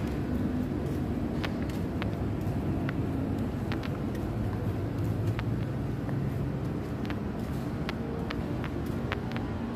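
Steady low rumble of city traffic, with a scattering of short faint ticks.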